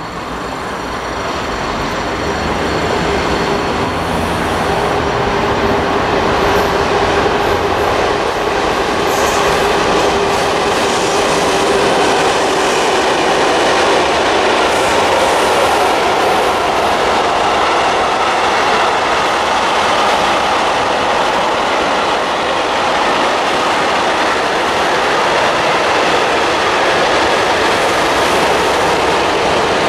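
Freight train of covered and tank wagons rolling through a station, growing louder over the first few seconds and then a steady rolling rumble with wheels clattering over rail joints. A held whine sounds over the first third.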